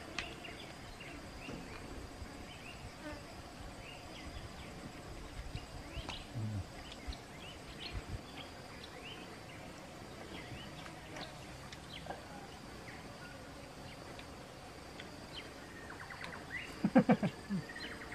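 Steady high buzzing of insects, with short faint clicks scattered through it. A brief voice sound near the end is the loudest moment.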